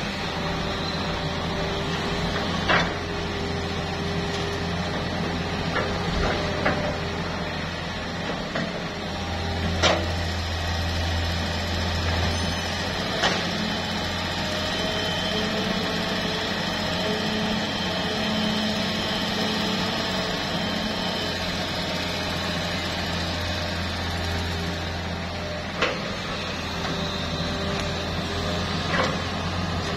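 Hitachi hydraulic excavator's diesel engine running steadily under load while it digs and swings, with a hydraulic whine that shifts in pitch as the boom and arm move. There are several short sharp knocks from the working machine.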